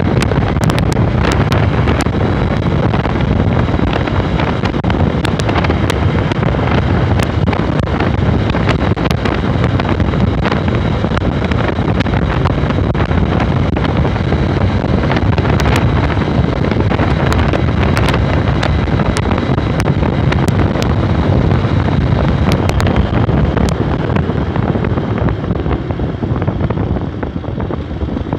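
A Honda NXR 150's single-cylinder engine running at a steady cruising speed under heavy wind rush on the microphone, with frequent brief crackles. It gets somewhat quieter near the end.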